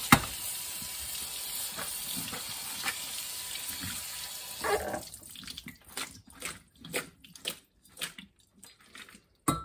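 Kitchen tap water pouring over canned potatoes in a stainless steel colander, rinsing off the starch. About five seconds in the water stops with a short squeak, and the drained potatoes are then shaken in the metal colander with scattered light taps and drips.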